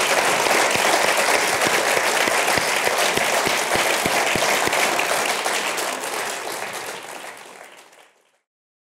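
Audience applauding: a dense, steady clapping of many hands that fades away near the end.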